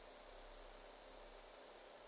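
Tinnitus-masking noise: a steady, high-pitched hiss with most of its strength near the top of the hearing range, unchanging throughout.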